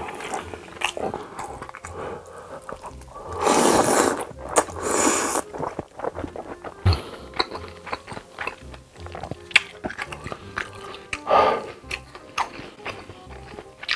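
Close-miked slurping of noodles from a spicy stew: two long slurps a little over three and five seconds in, then wet chewing with many small smacking clicks and another short slurp near the end. Background music runs underneath.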